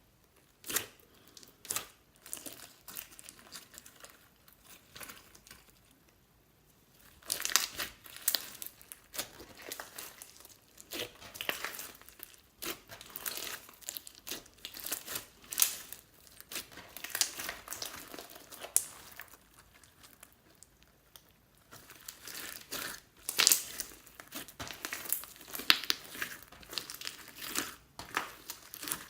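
Slime being worked by hand, making a run of crackling and clicking sounds. It is sparse at first and grows dense after about seven seconds, with a short lull two-thirds of the way through.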